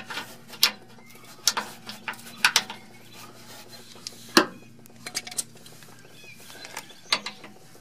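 Scattered metal clicks and taps of a screwdriver prying at the brake hose retaining clip on the frame bracket, the loudest a little past four seconds.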